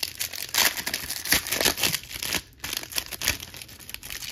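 Wrapper of a 1997 Press Pass Action Vision trading-card pack crinkling and tearing as it is opened by hand: a quick run of crackly rustles, busiest in the first two seconds.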